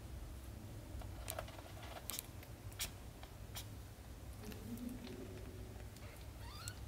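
Kittens nursing at their mother: soft, scattered small clicks and smacks of suckling over a low, steady rumble, with a faint rising peep near the end.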